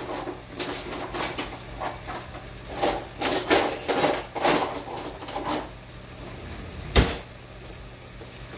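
Kitchen things being handled off camera: a run of clatters and light knocks for about five and a half seconds, then one sharp knock about seven seconds in, the loudest sound, over a low steady hum.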